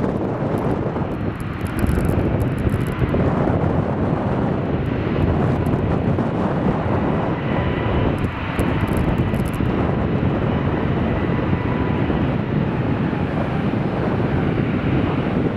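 Embraer 175 regional jet's twin turbofan engines at high power as it lines up and begins its take-off roll: a steady, loud rush of jet noise, with a faint whine coming through midway.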